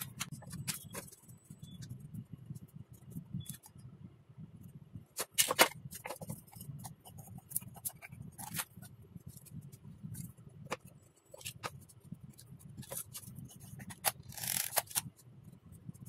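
Scattered knocks, clicks and scrapes from wooden and plastic parts being handled and fitted together, over a steady low hum. The sharpest knock comes about five and a half seconds in, and a brief scraping rustle follows near the end.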